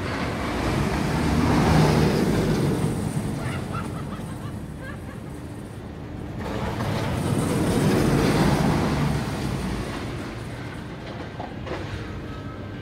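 Steel shuttle roller coaster train running along its track, a rushing rumble that swells twice as the train passes up the vertical tower and back down again.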